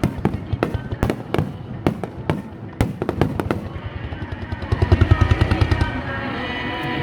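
Fireworks going off in quick succession, sharp bangs and crackles, over music from loudspeakers; the bangs thin out after about three and a half seconds, leaving the music with a fast run of low booms near the middle.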